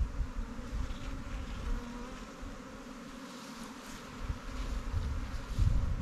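Many honey bees buzzing in flight around the hive boxes during a swarm capture. There are a few low rumbles near the start and again near the end.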